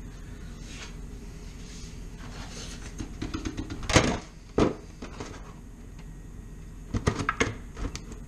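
Plastic rotisserie-chicken container being handled: a few sharp knocks around the middle, then a quick run of clicks near the end as the clear plastic dome lid is snapped onto the black tray.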